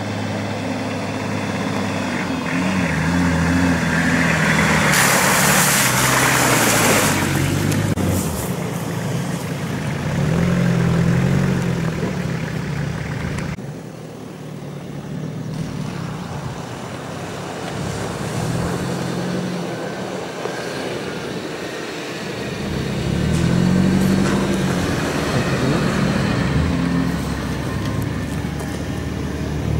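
Engines of off-road 4x4 SUVs driving along a dirt track toward the camera, engine pitch rising and falling repeatedly as they rev and ease off. A loud rushing noise comes about five seconds in, and the sound drops briefly around fourteen seconds.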